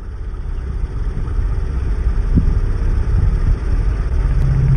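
Boat engine running with a low, steady rumble on open water, fading in and growing louder over the first couple of seconds.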